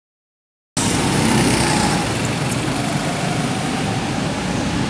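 Go-karts running on an indoor track, a steady mechanical engine noise inside a large hall. The sound cuts in abruptly under a second in.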